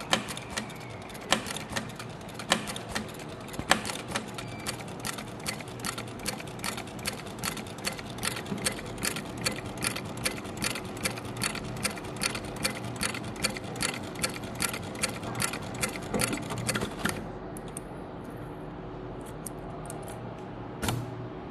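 Industrial heavy-duty sewing machine stitching a cross-stitch seam in fabric: an even clicking, one stitch at a time. It starts with slow, spaced strokes, runs at about three stitches a second, and stops about three-quarters of the way through.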